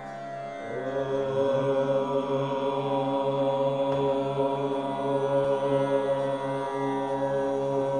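Chanted mantra: a voice glides up about half a second in and then holds one long note, over a steady drone of Indian instrumental music.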